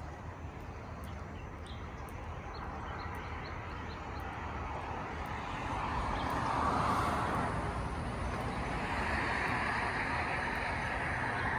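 Road traffic passing on the highway below: a steady wash of tyre and engine noise that swells as vehicles go by, about six seconds in and again near the end.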